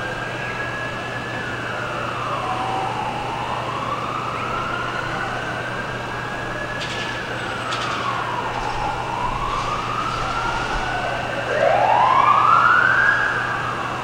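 Several emergency-vehicle sirens wailing, each slowly rising and falling over a few seconds and overlapping one another. Near the end a louder siren sweeps up in pitch.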